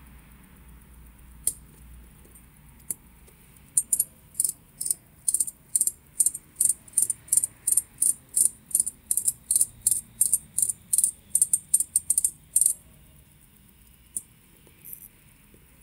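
Crown of a Ulysse Nardin UN-118 watch movement being turned by the fingers, giving tiny metallic clicks in a steady run of about three a second for some nine seconds, after two single clicks.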